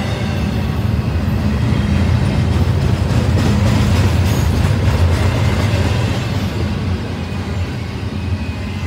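Double-stack intermodal well cars loaded with containers rolling past on the rails: a steady low rumble of wheels and cars, swelling slightly midway and easing toward the end.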